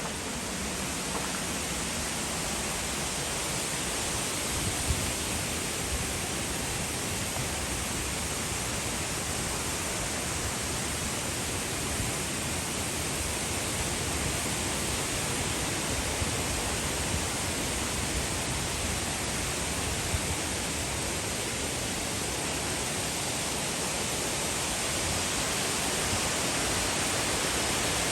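A 30-metre waterfall with a steady, even rush of falling water, growing slightly louder toward the end, with a few faint knocks.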